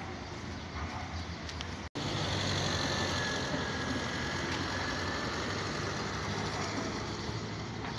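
Steady hum of an idling motor-vehicle engine over outdoor street noise. The sound drops out for a split second about two seconds in, then comes back slightly louder.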